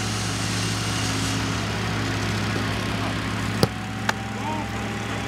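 A football struck hard and gathered into a goalkeeper's gloves, two sharp thuds about half a second apart, over a steady low engine drone.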